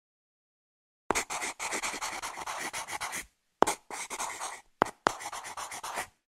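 Pencil scratching on paper as it writes, in three bursts of rapid scratchy strokes. The first starts about a second in, and a short sharp tap comes before each of the second and third bursts.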